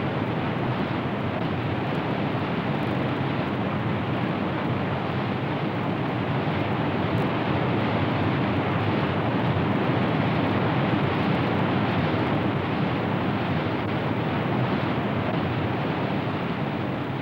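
Steady rushing roar of whitewater rapids, an even wash of noise that holds at much the same level throughout.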